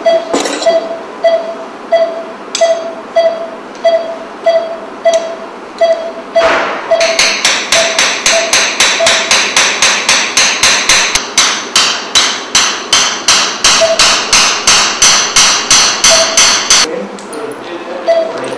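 A short electronic beep repeating steadily about every 0.6 s, typical of an operating-room patient monitor sounding each heartbeat. From about six seconds in, a fast run of loud, sharp hammer-like knocks, about four a second, lasts some ten seconds and then stops.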